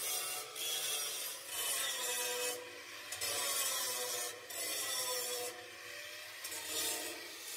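Handheld electric angle grinder grinding steel on a rickshaw body frame, the motor's whine rising and falling as the disc bears on the metal and eases off several times.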